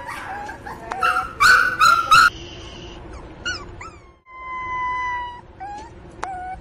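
Miniature pinscher puppy crying for its mother: a run of loud, high yelping cries, loudest about one and a half to two seconds in, then short falling whimpers, a long steady whine, and a couple of sharp yips near the end.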